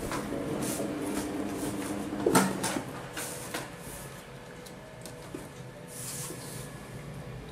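Kittens scuffling and playing on a tile floor: light knocks and scrabbling, with one sharper knock about two seconds in, over a faint steady hum.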